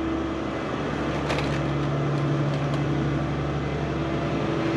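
Steady mechanical hum with a few light clicks about a second and a half and nearly three seconds in, from bolts and a nut being fitted to a ride-on mower's deck height lever.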